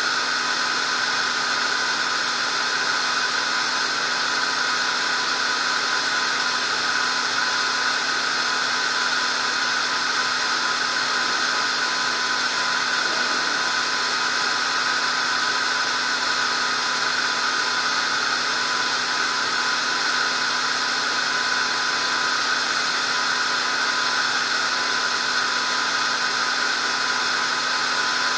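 A steady, unchanging whine with hiss and a few constant tones.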